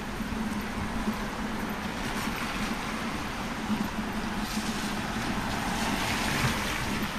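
Street traffic on a rain-wet road: cars passing with tyres hissing on the wet asphalt over a steady background hum, one passing car's hiss swelling about five to seven seconds in.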